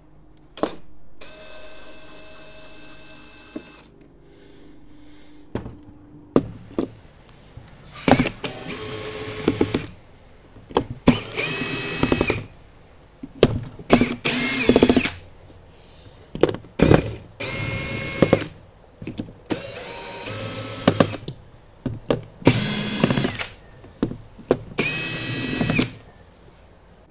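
Cordless drill-driver backing Phillips-head screws out of a battery's plastic lid: about eight short runs of the motor's steady whine, each a second or two long, the first the longest, with small clicks and knocks between runs as the bit is moved from screw to screw.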